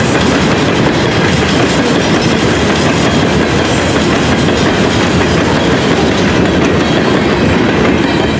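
Freight train of hopper cars rolling past, its steel wheels clattering over the rail joints in a loud, steady rush of noise.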